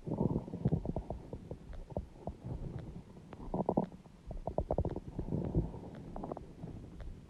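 Human stomach growling and gurgling: irregular bursts of low rumbling broken by quick bubbly crackles, louder just after the start and again from about three and a half to five and a half seconds in.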